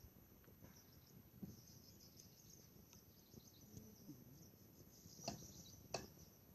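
Faint insect chirring, crickets most likely, as a steady high buzz close to near silence, with two short knocks near the end.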